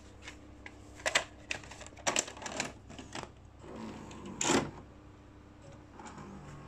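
A VHS cassette pushed into a Sharp VC-H710 VCR and taken in by its loading mechanism: a run of plastic clicks and clacks, then a longer mechanical whirring clatter about four seconds in, the loudest part, as the tape is loaded and playback starts. A faint steady hum runs underneath.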